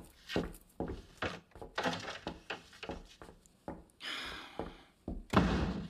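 Footsteps across a room, about two a second, then a louder thud near the end.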